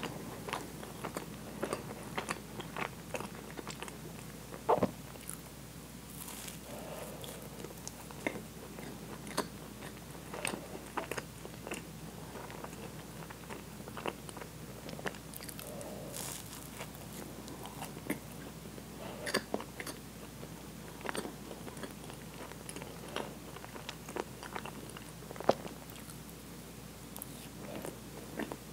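Close-up chewing of a Twinkie sponge cake: steady mouth sounds with many small, sharp clicks and smacks scattered throughout, a few louder than the rest.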